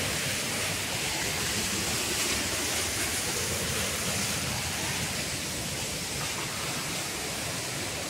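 Waterfall rushing, a steady even wash of falling water.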